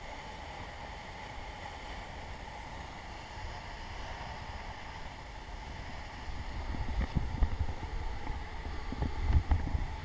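The steady roar of a large, heavy waterfall at close range. From a little past halfway, wind and spray buffet the microphone in irregular low rumbles.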